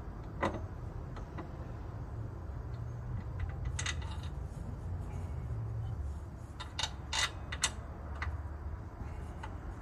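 Scattered metallic clicks and clinks of tools and bolts on the rear engine mount and its bracket, a few single clinks and then a quick run of three or four, over a steady low hum.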